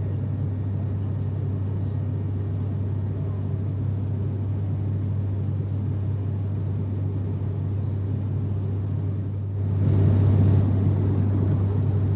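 ATR 72 turboprop airliner's engines and propellers droning steadily, heard inside the passenger cabin as a deep hum. Just before ten seconds in the noise swells louder with more hiss, then settles slightly louder than before.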